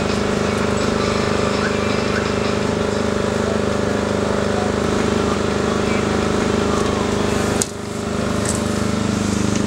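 A steady machine hum with a low, even drone, like a motor running; it drops off sharply about eight seconds in and swells back up within a second.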